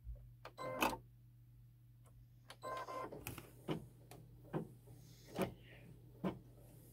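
Baby Lock embroidery machine getting ready to stitch the tack-down: a short motor whir as the hoop carriage moves, then a series of light clicks about once a second over a steady low hum.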